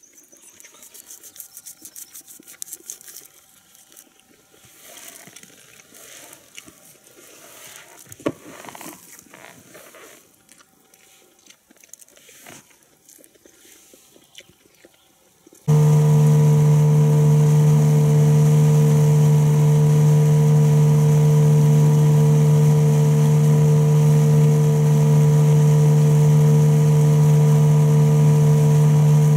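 Faint rustles and small clicks with one sharp click about eight seconds in, then, after an abrupt cut about halfway through, a Hidea 9.8 outboard motor running loud and steady at a constant pitch.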